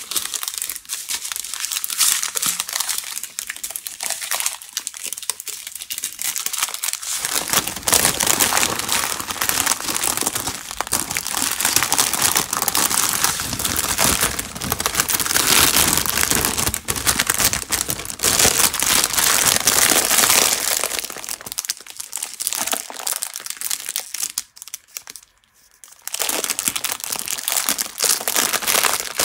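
Clear plastic bags crinkling and rustling as small bags of diamond painting drills are stuffed back into a larger plastic bag. The crinkling is continuous, with a brief pause near the end.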